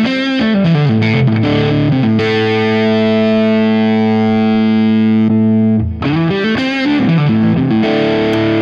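Electric guitar played through a Fractal Axe-FX III modeler with a Fuzz Face drive block in the chain, giving a distorted tone. A short phrase, then a chord held for about three and a half seconds, then more riffing with bends.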